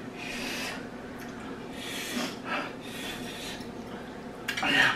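Two people eating extra-spicy instant ramen: a few noisy breaths and noodle slurps about a second apart, with light fork clinks on ceramic bowls, and a brief vocal sound near the end. The heavy breathing comes from the chilli burn.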